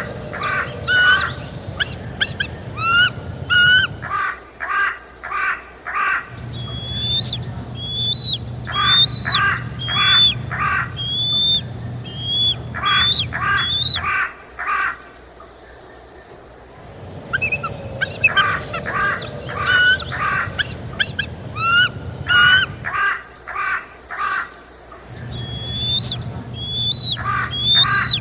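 Birds calling loudly: runs of short, quickly repeated notes mixed with higher slurred whistling calls, with a short lull in the middle.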